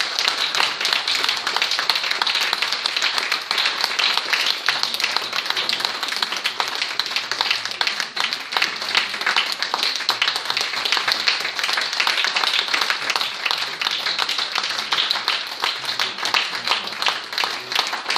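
Audience applauding with many hands clapping together. Near the end the single claps stand out more clearly.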